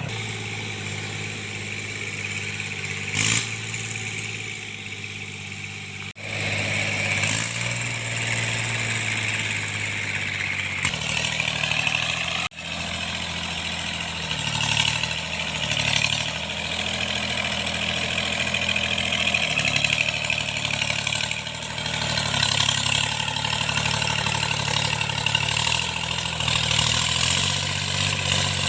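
A tractor engine running steadily while cultivating, with its knock recently repaired. There are two abrupt breaks, about six and twelve seconds in, after which the engine's note shifts slightly.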